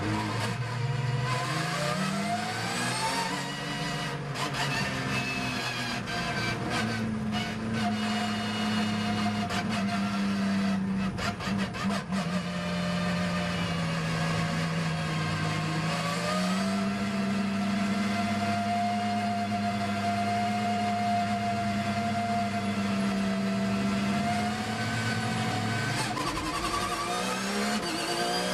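Porsche 911 GT3 R race car's flat-six heard from inside the cockpit, held at low, steady revs while the car creeps along at low speed. The revs climb briefly at the start, a few sharp clicks come through about ten to twelve seconds in, and the engine pulls up through the revs again near the end as the car accelerates.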